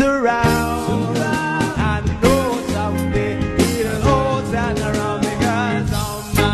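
Background music: a song with a steady beat, bass and a wavering melody line.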